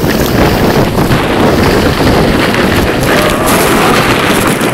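Loud wind rushing over the microphone during a fast sled ride down a snowy slope, mixed with the noise of the sled sliding over snow.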